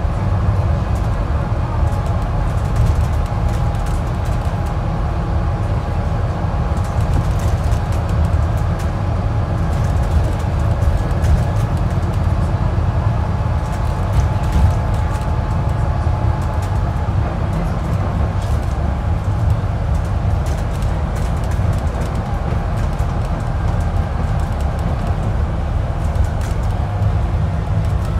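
Onboard sound of a Scania N25UD-chassis ADL Enviro400 City double-decker bus under way, heard inside on the upper deck: a steady low engine and road rumble with scattered light rattles and clicks from the interior.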